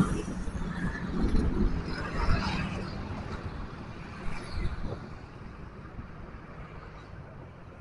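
Motor scooters and motorbikes passing close on a road bridge, their engines loudest over the first few seconds, then fading to a low, steady traffic noise.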